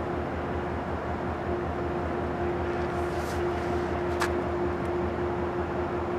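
Steady low rumble with a constant hum from a train's diesel engine running at the station. A brief hiss comes about three seconds in and a sharp click just after four seconds.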